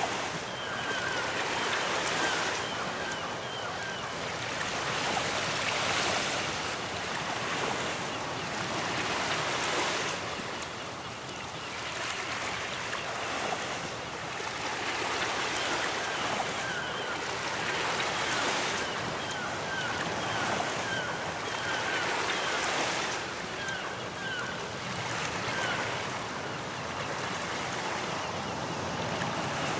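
Ocean waves breaking on a beach: a continuous surf wash that swells and eases every few seconds.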